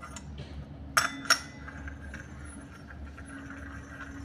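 Two sharp metallic clinks about a second in, a third of a second apart, as the steel cone of a hand-held bearing packer is fitted onto its threaded centre shaft over a tapered roller bearing. A faint steady hum runs underneath.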